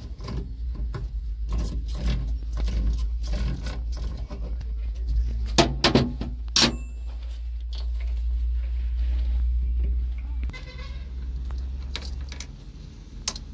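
Hand tools on the bolts of a hydraulic control valve's spool cap: rapid clicking and scraping of a spanner and socket wrench turning the bolts, with a few sharp ringing metal clinks about six seconds in. Underneath runs the low steady hum of the crane's engine idling, which drops in level about ten seconds in.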